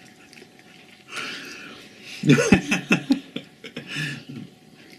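Quiet voices at the table: breathy murmuring, then about two seconds in a short vocal sound that rises and falls in pitch, with a few softer murmurs after it.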